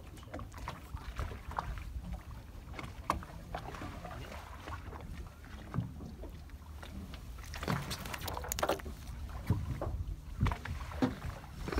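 Low steady rumble aboard a small fishing boat at sea, with scattered clicks and knocks as fishing tackle and a freshly caught fish are handled; the clicks come thickest about eight seconds in.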